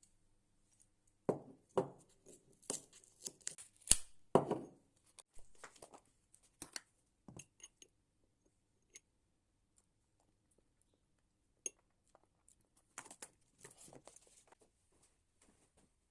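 Scattered handling noises in a small room: rustles, taps and sharp clicks, busiest in the first five seconds with a loud clack about four seconds in, then a few lone ticks and another burst of rustling near the end.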